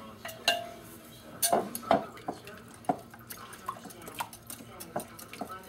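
Metal utensil clinking and knocking against a glass measuring cup while condensed soup is worked in, about a dozen scattered clinks, one ringing briefly about half a second in.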